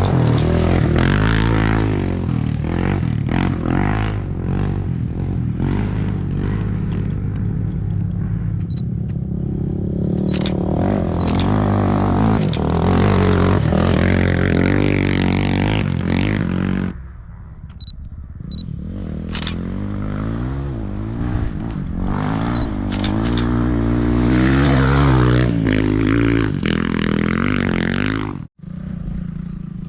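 Off-road racing engines (dirt bikes and ATVs) revving hard, pitch rising and falling through the gears. The sound fades about 17 seconds in, then builds again as another machine comes on.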